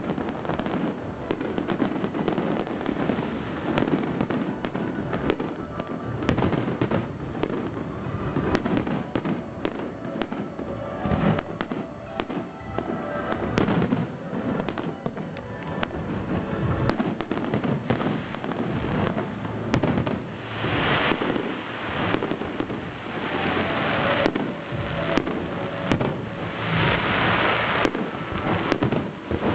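Aerial fireworks display: a continuous barrage of overlapping booms and bangs from bursting shells, with spells of denser, hissing noise in the last third.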